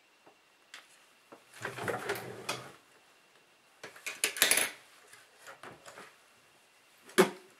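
Small tools and drone parts handled on a desk while insulation is stripped from tiny motor wires: short bursts of rustling and clatter with light clicks, and one sharp click near the end.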